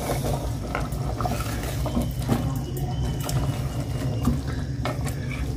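Creamy chicken gravy bubbling in a clay handi while a wooden spoon stirs it, with scattered soft knocks of the spoon against the pot, over a steady low hum. The gravy is at the frying stage, where the oil is starting to separate.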